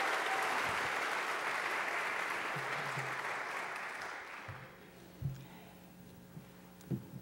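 Congregation applauding in welcome, the clapping fading out over the first four and a half seconds, followed by a few soft knocks.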